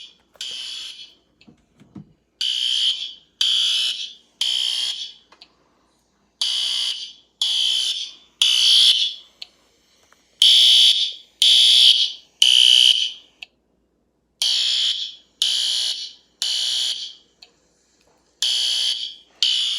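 A System Sensor SpectrAlert Advance fire alarm horn sounding the temporal-three evacuation pattern: three short, loud, high-pitched blasts, a pause, then three more, repeating. It is a fire alarm set off from a DSC alarm panel's keypad.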